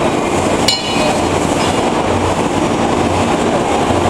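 MIG/MAG welding arc crackling steadily, with a low hum underneath. Just under a second in there is a sharp click and the noise dips briefly before the arc carries on.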